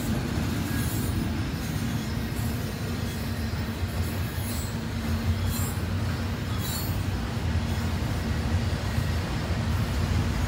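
Double-stack intermodal container cars of a freight train rolling past: a steady low rumble of wheels on the rails, with several brief high-pitched wheel squeals.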